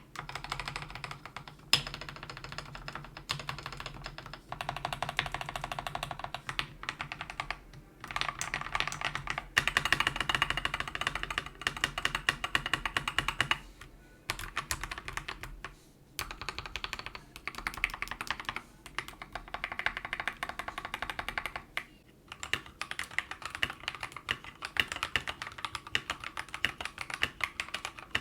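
Mechanical keyboard fitted with lubed Akko CS Jelly White switches, keys clacking in dense runs of a few seconds with short pauses between them. About 22 seconds in, it switches to fast continuous typing on the same switches unlubed (stock).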